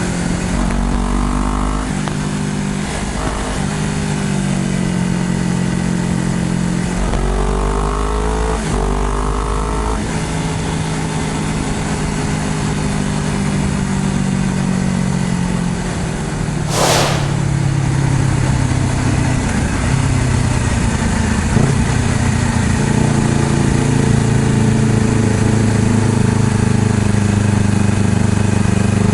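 Honda CBR250RR motorcycle engine running under way, its pitch climbing and dropping with gear changes in the first ten seconds, then holding a steadier cruise. A brief hiss cuts in about two-thirds of the way through.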